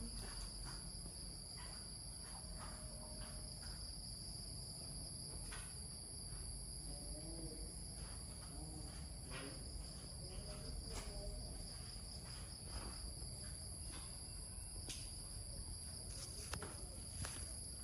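Steady, unbroken high-pitched insect chorus, such as crickets trilling around a rural farm field, with a few faint clicks.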